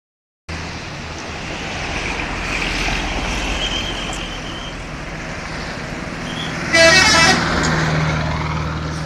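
Bus engine running as the bus pulls out. About two-thirds of the way in there is a short, loud blast of its telolet musical horn, the loudest sound.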